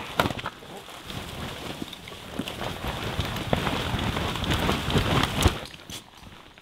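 Wet nylon tent fabric rustling and flapping as tents are taken down and shaken out. The noise grows busier and louder, then drops off sharply about five and a half seconds in.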